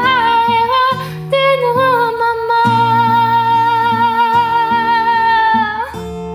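A woman singing to her own acoustic guitar. About two seconds in she holds one long note with vibrato, which slides down and stops near the end, and the guitar then plays on alone.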